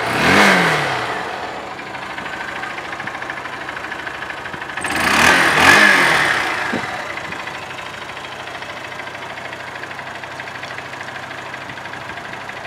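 Honda CBF125R's single-cylinder 125 cc engine idling, with a quick throttle blip right at the start and two more blips about five to six seconds in, each rev rising and falling back to a steady idle. The engine is in good running order.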